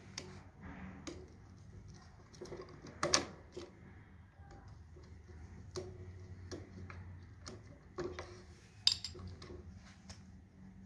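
Scattered clicks and light knocks of small plastic and metal contactor parts being handled and fitted together, with a sharp click about three seconds in and another near nine seconds. A faint steady low hum runs underneath.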